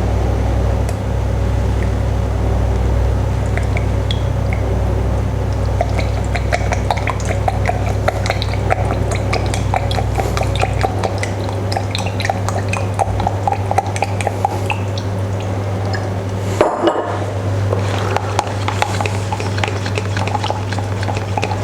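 Dark soy sauce being measured out and poured into a slow cooker pot, with many small clinks and ticks of the jug and pot and a sharp knock near the end, over a steady low hum.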